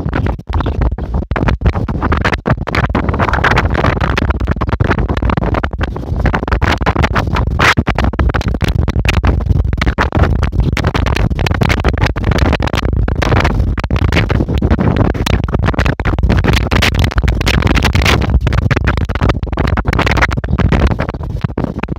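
Strong wind buffeting the microphone in a dense, rumbling, irregular rush.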